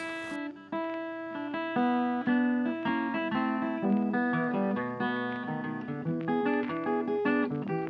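Background music: a gentle acoustic guitar piece of picked notes over strummed chords.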